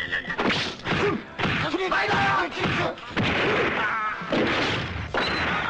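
Fight-scene sound effects: a quick run of punches and thwacks, with short shouted cries between the blows.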